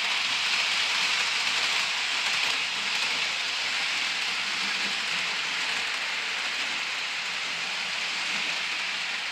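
HO scale model freight train rolling along the track: a steady rushing rattle of its wheels on the rails, growing slightly quieter as the cars and caboose go by.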